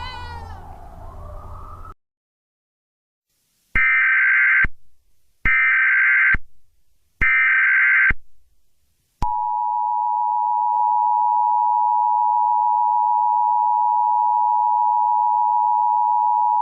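Emergency Alert System (EAS) tones. Three short, identical digital data bursts of about a second each make up the SAME header, repeated three times. About nine seconds in, the two-tone EAS attention signal (853 and 960 Hz together) starts and holds steady. Over the first two seconds, the tail of an earlier sound with falling pitches fades out before the header.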